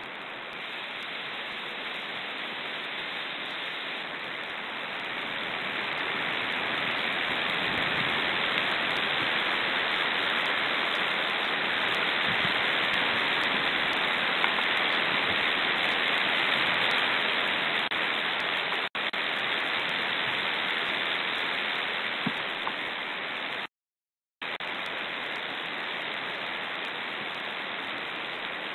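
Strong steady hiss of wind overloading the nest camera's microphone, swelling louder through the middle and cutting out completely for a moment about five seconds before the end.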